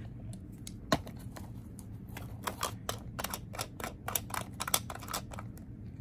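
Irregular small clicks and crackles of a candle and its packaging being handled and opened, with one sharper click about a second in.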